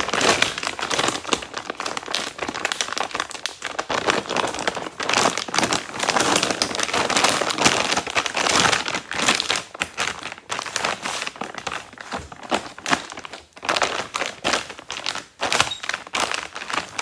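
Woven plastic feed sack crinkling and rustling as it is pulled open and smoothed flat by hand, a dense run of irregular crackles that rises and falls with the hand movements.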